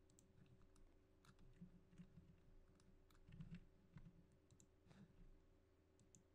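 Near silence with faint, scattered clicks from a computer mouse and keyboard, including mouse-button clicks and scroll-wheel ticks, over a low steady hum.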